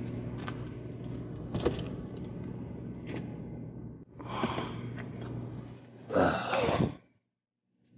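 Tesla Model 3 door being opened: a few sharp clicks, then two short bursts of mechanical movement, the louder one near the end. A steady low hum runs underneath.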